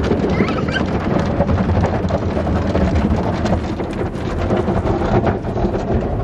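Automatic car wash heard from inside the car: water spraying and cloth wash strips slapping and rubbing across the windshield and body. It makes a steady, dense rumble full of small hits.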